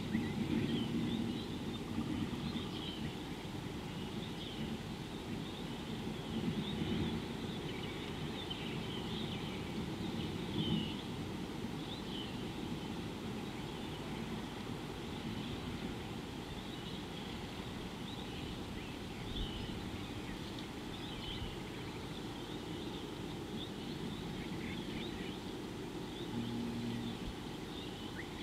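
Many short, high bird chirps scattered throughout, over a steady low outdoor background rumble.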